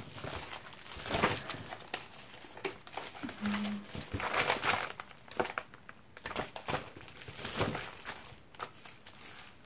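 Sheets of printed paper rustling and crinkling as they are leafed through and handled, in uneven strokes throughout.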